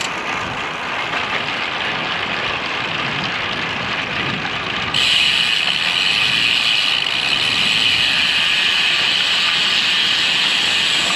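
Wind rushing over a GoPro's microphone on a moving road bike, a steady hiss mixed with road noise, growing louder about five seconds in.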